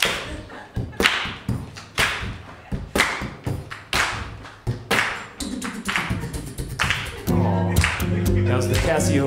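Vocal beatboxing into a microphone: a steady beat with a strong hit about once a second and lighter hits between. About seven seconds in, steady low pitched tones join the beat.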